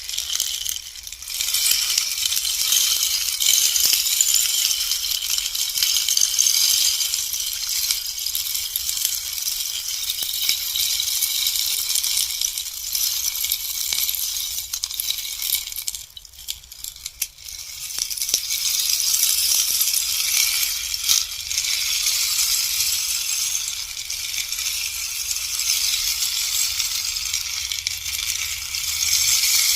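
Bamboo rainstick tipped slowly, its filling trickling down through it in a long, continuous, high-pitched pattering cascade. The cascade dies down about 16 seconds in, then starts again a couple of seconds later.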